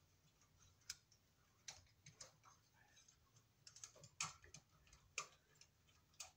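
Faint, irregular clicks and ticks as stiff electrical wires are folded into the plastic junction box of a canless LED recessed light, a cluster of them about four seconds in.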